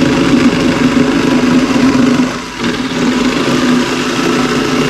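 Vehicle engine running steadily, dipping briefly about halfway through before picking up again.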